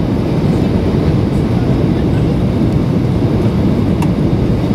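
Boeing 737-800 cabin noise: a steady, loud rumble of engines and airflow heard from inside the passenger cabin, with a faint click about four seconds in.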